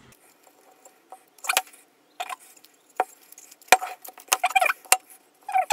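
Blue painter's tape being handled and trimmed with a Stanley knife against an aluminium casting: a series of short scratchy rasps with a couple of sharp clicks, the last rasp near the end longer and squeakier.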